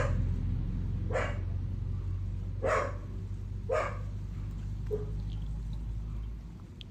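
A dog barking in short single barks, about five, roughly a second apart, over a low steady rumble that dies away near the end.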